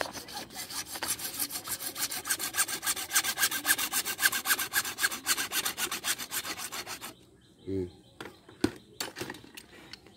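A hand saw cutting through PVC water pipe in quick, even back-and-forth strokes that stop about seven seconds in. A single sharp knock follows near the end.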